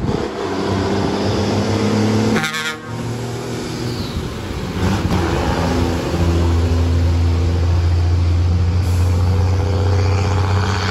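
Ford Cargo truck's diesel engine running while driving, with a short break about two and a half seconds in. From about six seconds in it grows louder and deeper, as if under more throttle.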